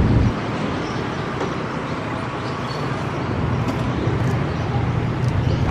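Diesel locomotive engine running as the locomotive creeps forward along the yard tracks, a steady low hum that dips just after the start and slowly grows louder toward the end.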